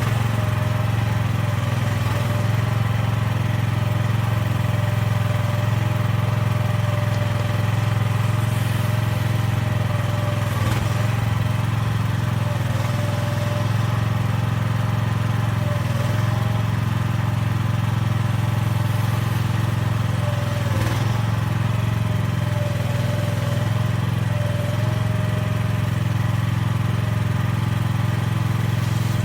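Small engine of an AGT MX12R 1-ton mini excavator running steadily, with a faint higher tone that wavers slightly over it.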